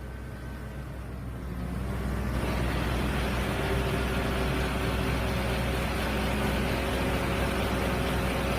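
Excavator engine and hydraulically driven screening bucket running steadily. The sound swells about two seconds in and then holds.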